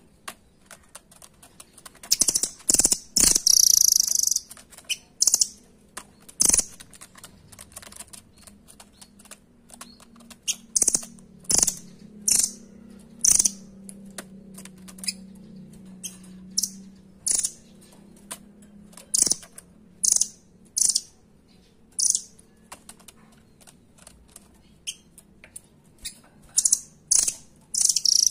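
A caged rambatan Doraemon calling in a series of short, sharp, high-pitched chips. They come in irregular clusters, with the loudest and densest run about two to four seconds in.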